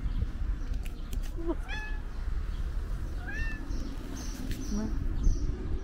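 Street cat meowing a few times as it walks up, with short high meows that rise and fall; two clear ones come about one and a half and three seconds in.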